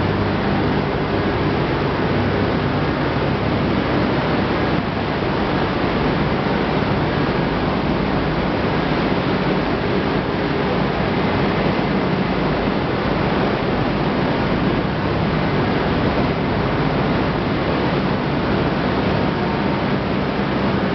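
Steady running noise of corn wet-milling machinery: a low motor hum under an even rushing hiss, with ground corn slurry washing down an inclined separation screen.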